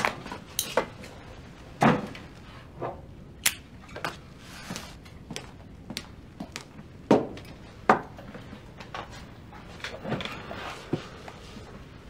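Kitchen handling noises: a series of irregular clinks, knocks and thumps as glasses, a bottle and dishes are picked up and set down. The loudest knocks come about two, seven and eight seconds in.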